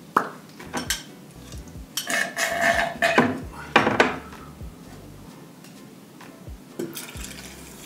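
A drinking glass and an aluminium Pepsi can being picked up and handled on a table: a few scattered clinks and knocks of glass and can.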